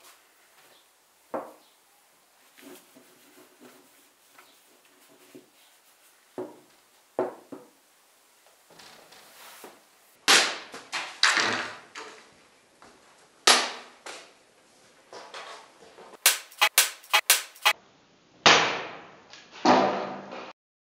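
Small, faint knocks of a sabre being handled on a wooden workbench, then loud, sharp cracking strikes of a yatagan sabre cutting bamboo stakes: single cuts, one quick run of several, and more near the end.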